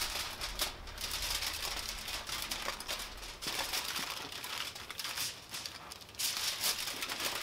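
Aluminium foil crinkling and rustling as it is folded over a smoked brisket by hand: a dense run of crackles.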